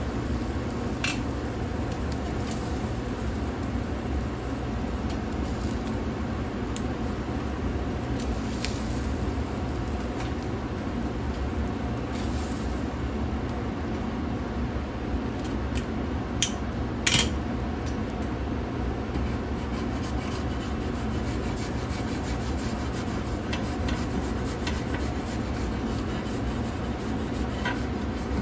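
Meat sizzling on a hot kamado grill's grate, with a few sharp metal clicks from tongs, the loudest about 17 seconds in. Near the end a grill brush starts scraping across the bare grate.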